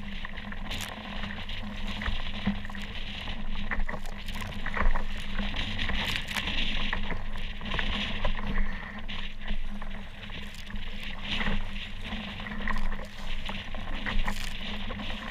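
Water splashing and sloshing against a kayak being paddled through choppy waves, with many small irregular splashes and knocks over a steady wash of water noise.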